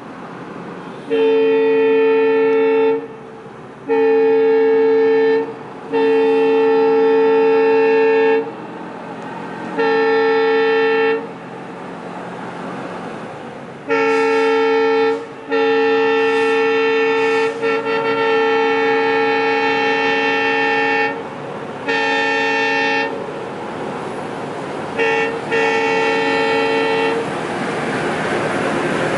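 Diesel locomotive horn sounding about nine blasts, short and long, one held for about six seconds. Near the end the rumble of the train grows as it approaches.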